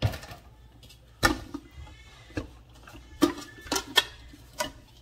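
Nested mixing bowls being taken apart and handled on a kitchen counter, giving a series of about seven sharp knocks and clinks with brief ringing.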